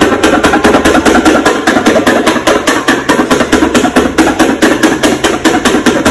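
Rapid, steady tapping, about eight sharp knocks a second, like light hammering.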